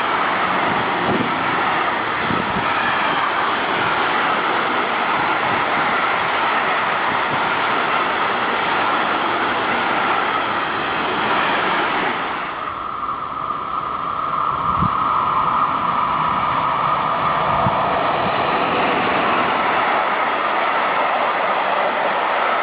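A train passing on the line, a steady rush of wheel and rail noise. The sound changes abruptly about halfway through.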